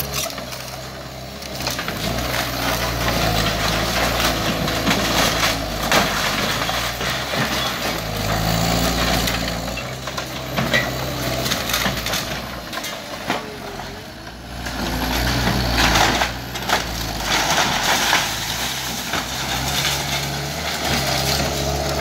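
Skid steer engine running and revving up and down under load, with wood crunching, cracking and splintering as the machine breaks up a house's framing. Sharp knocks stand out about six and sixteen seconds in.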